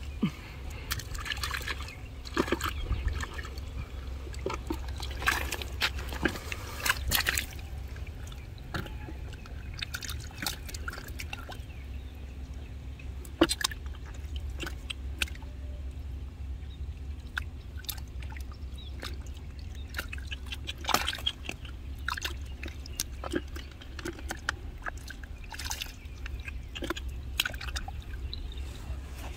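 Hands sloshing and splashing in a shallow muddy puddle while groping for fish, in irregular small splashes and drips.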